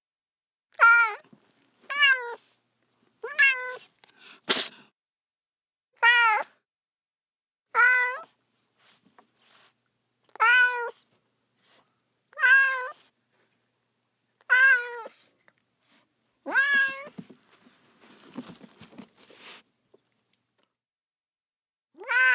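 Domestic cat meowing over and over: about ten short meows, each rising and falling in pitch, roughly every two seconds. A sharp click comes about four and a half seconds in, and some faint rustling follows the meows near the end.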